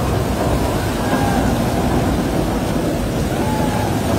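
Tunnel boring machine's cutterhead grinding through the last of the rock face as it breaks through into the shaft, a loud, steady rumble with no pauses, mixed with the hiss of water being sprayed onto the cutterhead.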